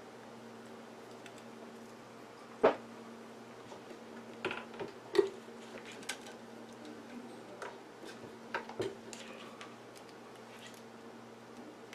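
Scattered small clicks and knocks of metal parts and cables being handled on an electronics workbench. The sharpest click comes about two and a half seconds in, with a cluster between four and five seconds, all over a faint steady low hum.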